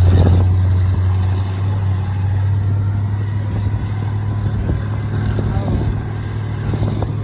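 Monster truck engine running with a steady low drone as the truck drives off over sand dunes, slowly growing fainter as it moves away.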